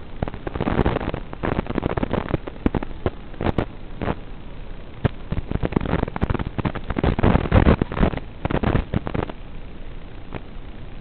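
Crackling static from the analog FPV video link's audio channel, a hiss with many sharp clicks and pops that thicken and thin as the signal varies.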